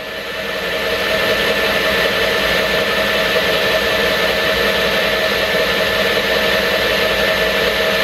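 Cordless Milwaukee drill spinning the shaft of a 12-volt, 350-watt DC motor run as a generator, whirring steadily with a steady high whine. The generator is loaded with heaters and putting out about 25 watts. The sound dips at the very start and builds back up to speed over the first second.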